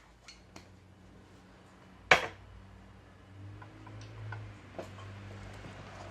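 GHK OTs-14 gas blowback airsoft rifle on green gas firing a single sharp shot about two seconds in. A few faint clicks of handling come before and after it.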